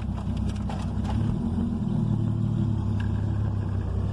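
Chevrolet Caravan's straight-six engine and exhaust running while the car is under way, heard from inside the cabin: a steady low drone whose pitch shifts about a second in. The exhaust has a new pipe from the engine back and a Hyundai Tucson V6 muffler, which gives it a truck-like rumble, and the owner says it misfires on its current spark plug.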